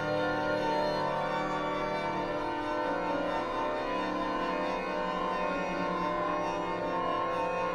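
Organ playing slow, sustained chords, the held notes changing every second or so.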